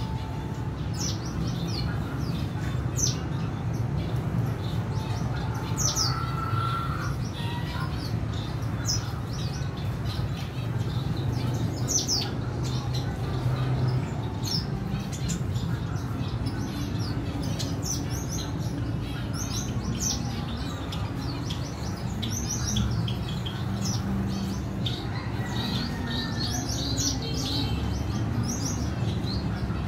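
Caged red siskins chirping: short, thin, high calls that sweep downward, scattered irregularly throughout, over a steady low hum.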